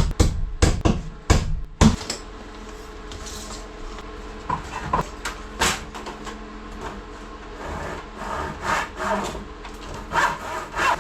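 Hand saw cutting wood with back-and-forth rasping strokes, stronger in the last few seconds. Drum beats from background music end about two seconds in.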